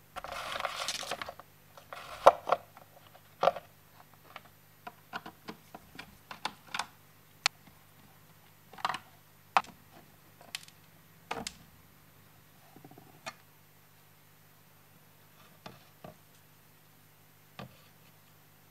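Handling noise from taking an oval speaker out of an old tape recorder's wooden cabinet: a scraping rustle in the first second, then irregular sharp clicks and knocks of the metal speaker frame and case. The loudest knock comes about two seconds in, and the knocks grow sparse in the second half.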